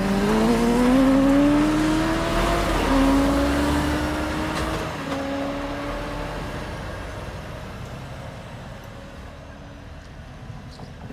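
Diesel engine of an articulated lorry pulling away and accelerating, its note rising, dropping back at each gear change (about three times) and rising again, fading as it drives off.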